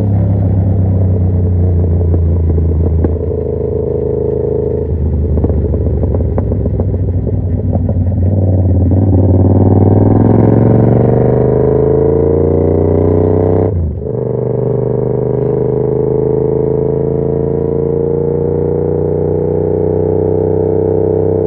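Yamaha MT-07's parallel-twin engine through an SC Project carbon aftermarket exhaust, running under way on the road. Its pitch rises steadily for several seconds under throttle, drops sharply once about 14 seconds in as it shifts gear, then climbs slowly again.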